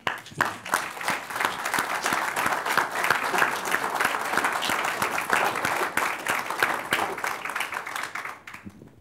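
Audience applauding: dense clapping that starts all at once and fades out near the end.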